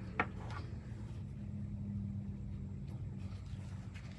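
Precut cotton fabric pieces being handled and turned over on a wooden table, with one sharp tap about a quarter second in and a faint tick near the end, over a steady low hum.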